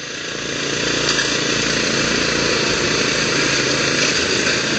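Riding lawn mower engines running hard under load as the two mowers pull against each other. The sound gets louder over the first second, then holds steady.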